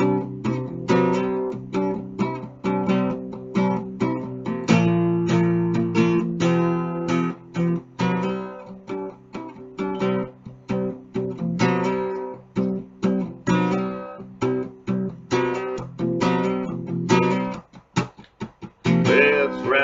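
Acoustic guitar strumming a steady rhythm as the instrumental opening of a song, with a few short, choppy strums near the end.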